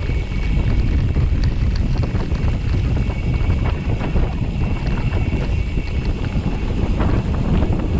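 Wind buffeting the microphone of a camera on a moving bicycle, over a steady rumble of gravel bike tyres rolling on a rough gravel track and then a lane.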